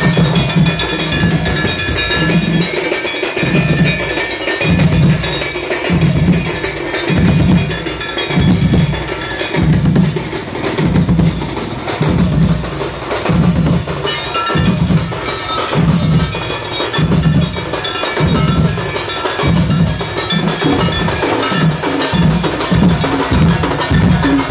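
Singha baja street band playing live: large barrel drums beaten in a steady driving rhythm, with a frame of hanging metal gongs clanging over them. The metallic clanging thins out for a few seconds midway while the drumming carries on.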